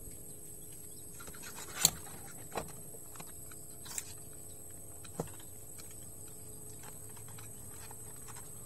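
A few light clicks and knocks of plastic parts as the Epson L360 printer's printhead carriage and cables are handled during a belt-drive replacement, the loudest about two seconds in, over a steady faint background hiss.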